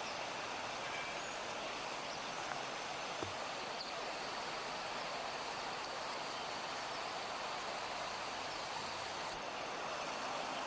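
Steady, even background hiss with no distinct sound events, and a single small click about three seconds in.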